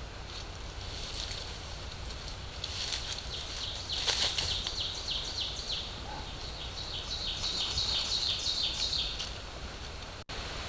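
A small bird singing two runs of quick, repeated, high falling notes over a steady hiss; the sound cuts out for an instant near the end.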